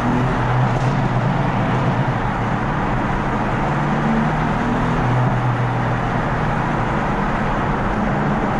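BMW M4's twin-turbo straight-six on a Stage 1 tune, heard from the cabin with the windows down: a loud, steady engine and exhaust note under road and wind noise.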